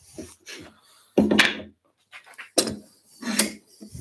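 Wooden boards being shifted and set down on a workbench: a run of short knocks and scrapes, the loudest about a second in and again near the end.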